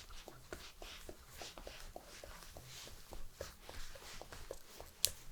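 Close-miked ASMR massage sounds: soft rubbing with a quick run of light ticks and taps, and one sharper click near the end.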